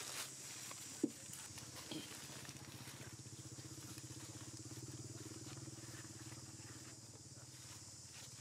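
A small engine running steadily, swelling toward the middle and then easing off, with a steady high hiss above it. A single sharp click about a second in.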